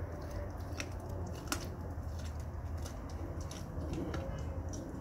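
Blue-nose pit bull chewing a raw turkey neck: irregular crunches and clicks of teeth on bone and gristle, about one every half second, over a steady low rumble.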